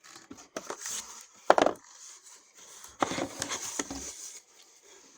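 Handling of cardboard firework packages: irregular knocks, clunks and rustling as the items are picked up and moved. The sharpest knock is about one and a half seconds in, and a busier run of clatter comes about a second later.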